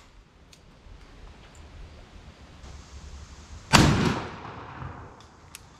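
A single shot from a 12-gauge Mossberg 940 Pro Turkey semi-automatic shotgun firing a Federal TSS turkey load, nearly four seconds in. The report is loud and sudden and fades away over about a second.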